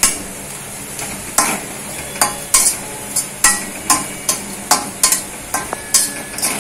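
Perforated steel spatula scraping and knocking against a steel kadai while grated coconut and onions are sautéed in oil: sharp clicks roughly twice a second over a steady sizzle.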